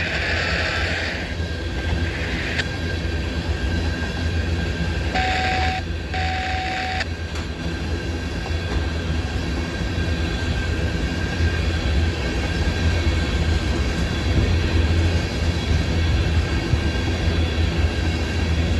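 Freight train of tank cars rolling past at close range: a steady rumble and clatter of steel wheels on the rails. A short high-pitched squeal or tone sounds twice, about five and six seconds in.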